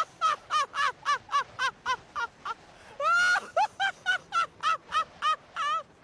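An animal calling in a quick run of short, pitched, arching hoots, about four or five a second, with one longer call about three seconds in before another fast run.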